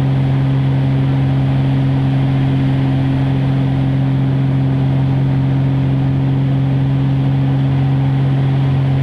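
Aerobatic propeller plane's engine and propeller droning at a constant pitch, with a steady rushing noise under it.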